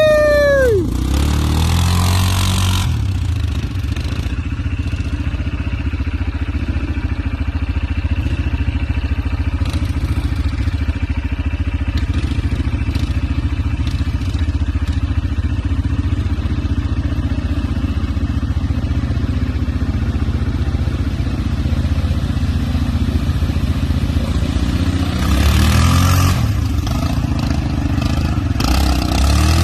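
Yamaha ATV's single-cylinder four-stroke engine. Its pitch falls sharply at the start, then it runs at a steady low drone, and it grows louder again with throttle near the end.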